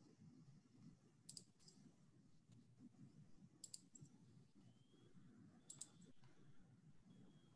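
Near silence: faint room tone, with three small groups of faint clicks about two seconds apart.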